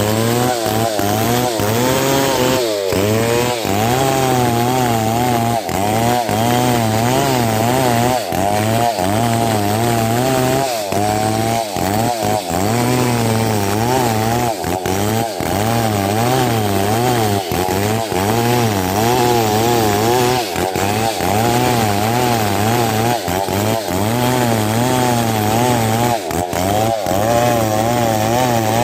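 Stihl 070 two-stroke chainsaw running at full throttle while ripping a log lengthwise. The engine note wavers up and down continuously as the long bar bites and eases in the cut.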